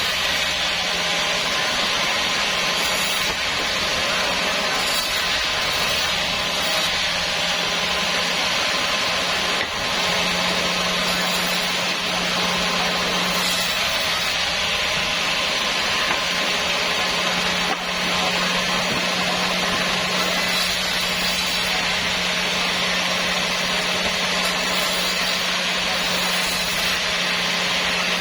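Sawmill saw running and cutting through a small sonokeling (Indian rosewood) root: a steady low hum under a continuous even hiss of the blade in the wood, with two brief dips in level partway through.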